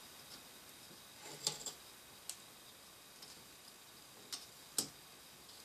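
A few scattered faint clicks and taps: the wire clips of a Noctua NH-D14 cooler's center fan being pulled over the heatsink fins and snapping into place.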